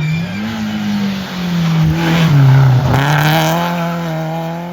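Rally car engine running hard, its pitch dipping and climbing again as it comes off and back on the throttle. It is loudest about two and a half seconds in, with a brief rush of noise just after.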